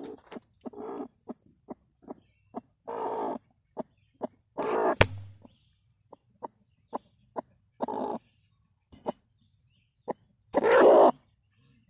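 Broody hen on her nest, angry and fussing, giving short sharp clucks between several longer harsh calls, the loudest near the end. A single sharp tap about five seconds in.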